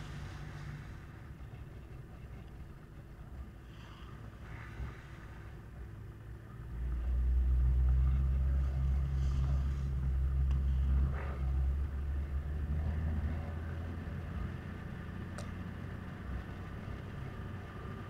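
Toyota Land Cruiser HZJ78 troopy's 1HZ inline-six diesel engine running as the truck drives along a dirt road, with a low rumble. About seven seconds in, the engine grows noticeably louder for a few seconds, then gradually settles back.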